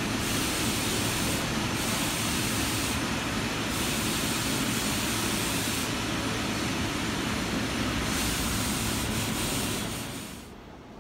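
A steady, loud rushing noise with a low hum under it, fading out near the end.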